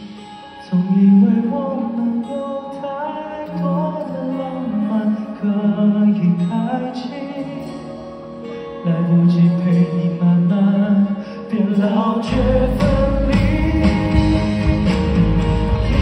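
A male singer performs a slow ballad live with a band, his voice over soft guitar backing. About twelve seconds in, the full band comes in with heavy bass and a beat, and the music gets louder.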